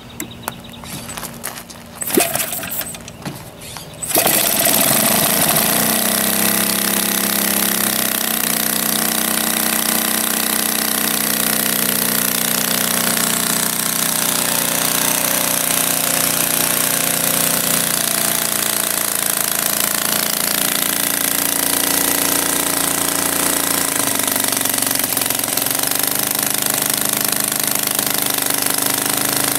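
Kolm EZ65 gasoline model-aircraft engine on its first run, started by flipping the propeller by hand: a few sharp sounds, then it catches about four seconds in and runs steadily and loudly. Its speed drops a little around eight seconds in and shifts slightly twice later on.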